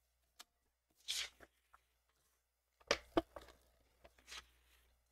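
Sheets of paper rustling and sliding as they are handled and laid on a desk, in a few short separate bursts, with a faint click or two.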